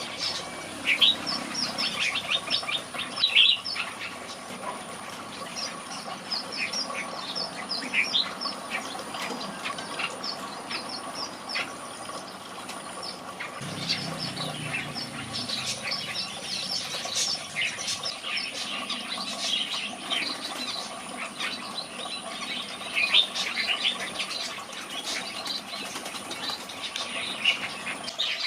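Red-whiskered bulbuls chirping and calling: a busy run of short, sharp notes, thickest at the start and again in the second half, over a faint steady hum.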